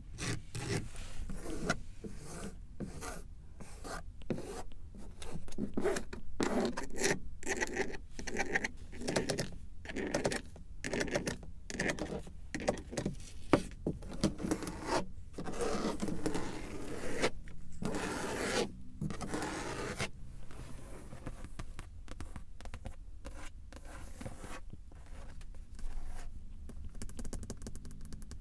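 Repeated scraping and rubbing strokes across a car's surfaces, picked up close to the microphone. The strokes come one after another with short gaps between them, and turn into quicker, lighter scratches near the end.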